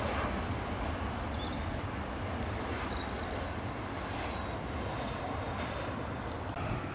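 Boeing 737-800 airliner's jet engines running steadily as it lands: a continuous rushing jet noise over a low rumble, easing slightly after the start.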